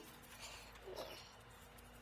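Near silence: faint room tone, with a brief faint sound about a second in.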